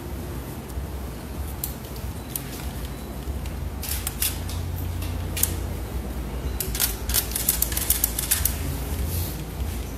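Scattered sharp clicks over a steady low hum: a few single clicks through the first half, then a quick run of clicks about seven to eight and a half seconds in.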